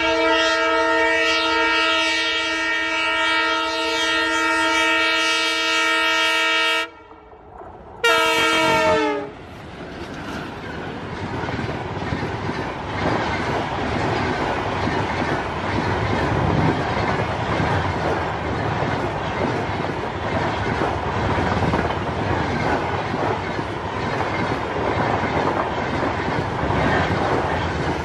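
Horn of twin WDM-3D diesel locomotives: one long blast of about seven seconds, then a short blast about a second later whose pitch drops as the locomotives pass. Then the steady rumble and wheel clatter of the passenger coaches running past.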